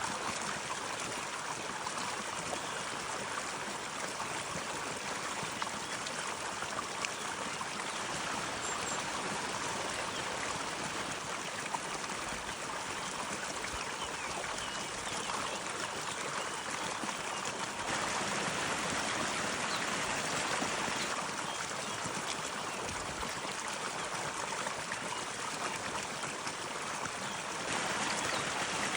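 Spring stream of meltwater flowing steadily over stones, an even rushing and trickling that gets a little louder twice, partway through and near the end.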